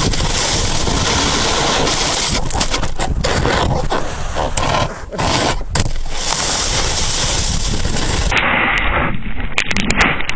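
Snowboard sliding and scraping over snow, with snow spraying onto a board-mounted camera and wind rushing on its microphone. The sound is loud and noisy throughout, dips briefly about five seconds in, and turns duller from about eight seconds in.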